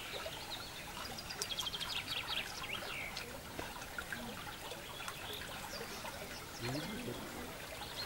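River water trickling and flowing past the wooden piles of a bridge, a steady wash of noise. Small birds chirp over it, with a quick run of high notes about one and a half seconds in.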